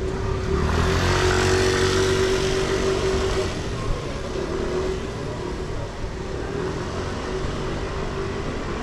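A motor vehicle passes on a city street, loudest from about one to three and a half seconds in, over a steady mechanical hum and general street noise.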